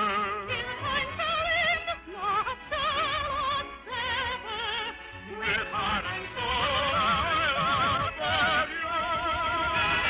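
Operatic singing of a slow romantic ballad: a high voice holding long notes with wide vibrato over an orchestral accompaniment.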